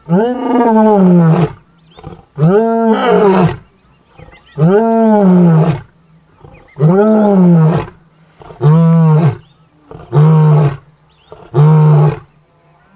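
Male African lion roaring: a bout of seven deep calls, the first four long and the last three shorter and closer together.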